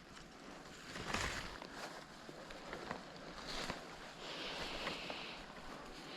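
Footsteps and rustling through leaves and undergrowth, with scattered small cracks and snaps; a louder rustle about a second in and a longer rustle around four to five seconds in.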